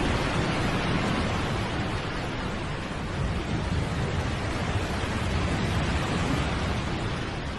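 A steady rushing noise, like surf or wind, cuts in abruptly and runs on evenly with no tones in it.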